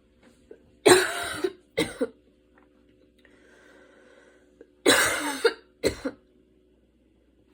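A woman's asthmatic cough in two bouts, each a long harsh cough followed quickly by a shorter one, about four seconds apart.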